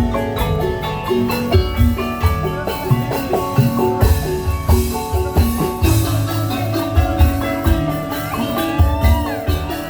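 Tongklek ensemble playing: quick melodic bamboo percussion notes over a repeating low drum beat, with a gliding melodic line near the end.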